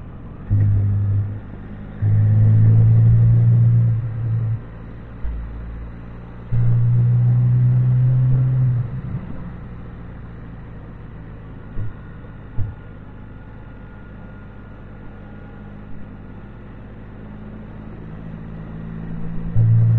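Can-Am Spyder's engine running on the road, swelling into loud, steady pulls for a second or two at a time three times in the first nine seconds, then easing back until it pulls again near the end. A steady rush of wind and road noise runs underneath.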